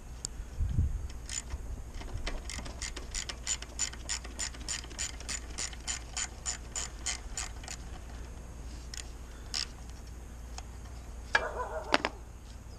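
Hand ratchet clicking in a quick even rhythm, about four to five clicks a second, for several seconds, then a few single clicks. A brief squeak comes near the end.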